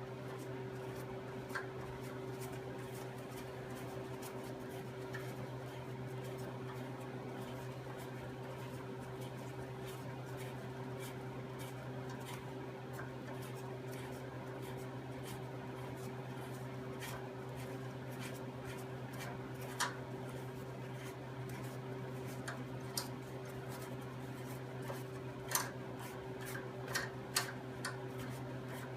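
Steady electrical hum with a few light metallic clinks, scattered and bunched toward the end, as metal parts and tools are handled on a workbench.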